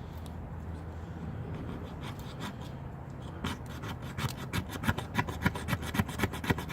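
The Leatherman Micra's small nail file scraped along a ferro rod fire starter to throw sparks. Quiet rubbing at first, then quick rasping strokes, about five a second, that get louder over the last three seconds.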